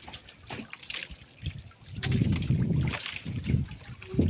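Sea water lapping and sloshing against the hull of a small outrigger boat, louder from about halfway through.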